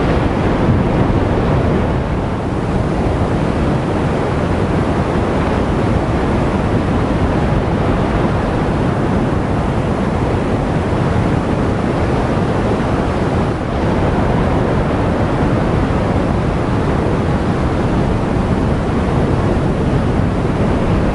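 Ocean surf breaking along a rocky coastline, a steady rushing wash, with wind buffeting the microphone.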